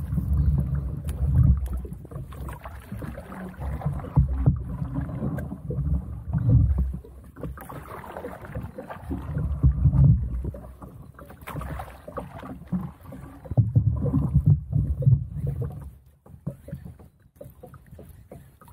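Water sloshing against a small boat's hull, with irregular low rumbling surges every couple of seconds and a few sharp knocks; it drops quieter near the end.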